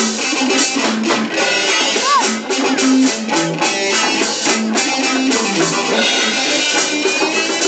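Reggae music with guitar and drum kit, playing loud and steady.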